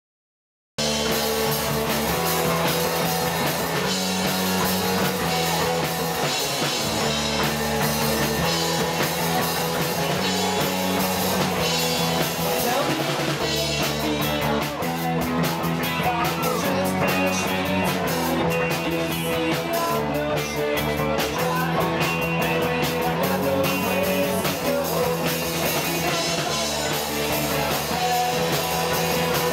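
Live rock band playing: electric guitars, bass guitar and drum kit, cutting in abruptly about a second in and running on steadily.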